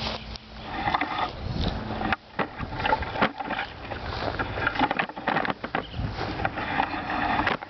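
Dry prickly lettuce stalk being cleaned by hand: irregular crackling, snapping and rustling as brittle leaves and side shoots are broken and stripped off.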